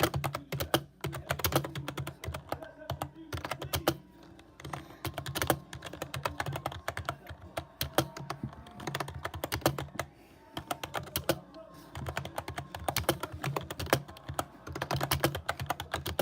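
Typing on a computer keyboard: runs of rapid keystrokes, with short lulls about four seconds in and again around ten seconds in.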